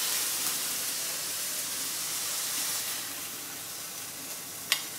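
Scallop skewers wrapped in cured ham sizzling in hot olive oil in a frying pan: a steady hiss that eases a little after about three seconds. A single sharp click near the end.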